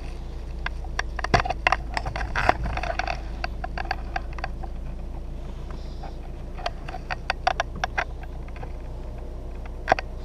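Mini Cooper S F56's turbocharged four-cylinder idling as a steady low hum inside the cabin, with scattered irregular clicks and taps over it.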